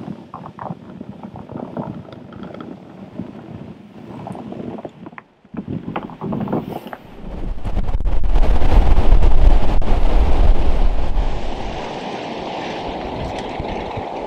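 A loaded sled dragged over snow, with crunching footsteps, for the first few seconds. Then wind gusts through bare winter trees, buffeting the microphone with a loud rumbling rush for about four seconds before easing to a steadier rush.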